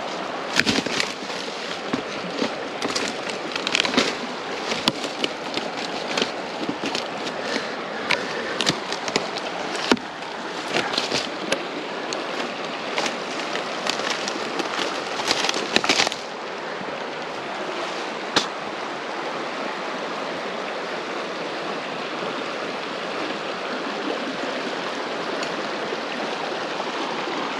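Creek water rushing steadily over shoals. Scattered sharp cracks and knocks sound over it for the first half or so, then stop, leaving only the water.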